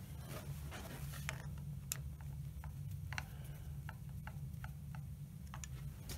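Light metallic clicks and taps from hands working a drive belt onto a lathe pulley, a dozen or so short, irregular ticks over a low steady hum.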